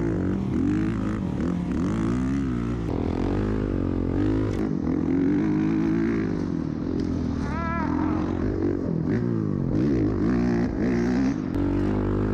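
Motorcycle engines running and revving, several at once, their pitch rising and falling.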